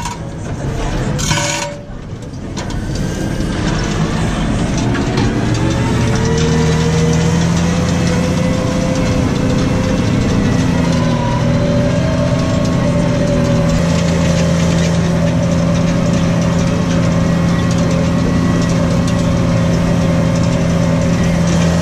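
New Holland T6.155 tractor's diesel engine pulling a plough. The note dips briefly at the start with a few short clicks, climbs in pitch over the next few seconds, then settles into a steady drone under load.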